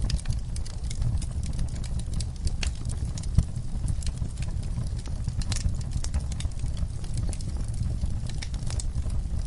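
Wood fire in a fireplace crackling: a steady low rumble of flames with irregular snaps and pops, one sharper pop about three and a half seconds in.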